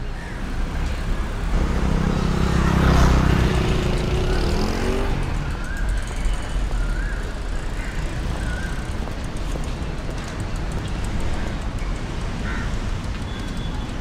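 Street traffic noise. A motor vehicle's engine passes close, loudest about two to five seconds in, its pitch rising as it goes, and a steady traffic hum follows.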